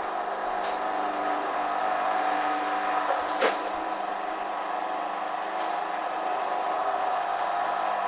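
Hoover Dynamic washing machine in its spin cycle, the motor whining steadily as the drum turns with suds and water still in it. A single sharp click about three and a half seconds in.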